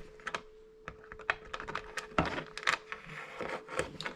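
Irregular light clicks and knocks of hard plastic being handled: an aftermarket LED turn signal being fitted against the motorcycle's plastic fairing.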